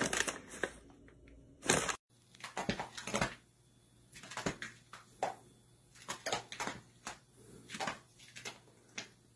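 A paper grocery bag crinkling as a cat pushes its head into it, then, about two seconds in, a cat's claws scratching a carpet in a run of short, uneven strokes.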